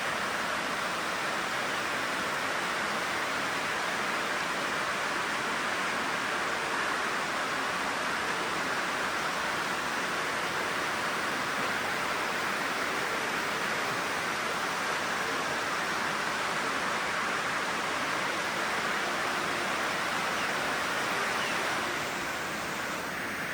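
Heavy rain falling steadily, an even hiss of water that eases slightly near the end.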